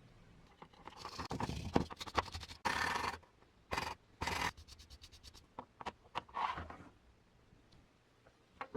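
Irregular scraping and scratching strokes, some longer and some short, mixed with sharp clicks, dying away about seven seconds in.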